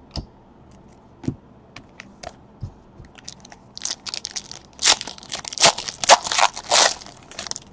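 A few light clicks, then from about four seconds in a foil trading-card pack wrapper of 2018 Panini Certified Football being torn open, crackling and crinkling in a dense run until just before the end.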